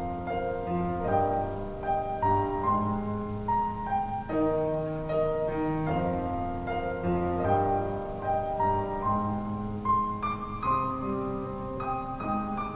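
Piano music, a melody of held notes changing about every half second, with no firework bursts.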